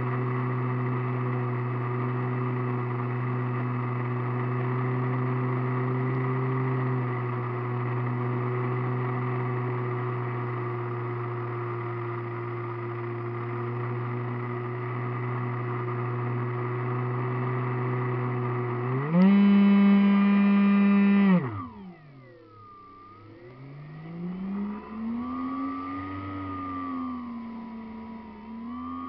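RC model airplane's motor and propeller heard from a camera on board, running at a steady pitch. About nineteen seconds in the pitch jumps up and gets louder for about two seconds as the throttle is opened, then it cuts off suddenly and the pitch falls away. A fainter, wavering drone follows that rises and falls in pitch.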